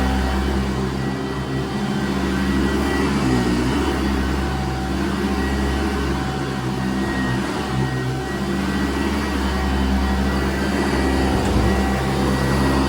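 Sanitaire commercial upright vacuum cleaner running steadily on carpet. Its motor and brush-roll hum shifts slightly in pitch a few times as it is pushed back and forth.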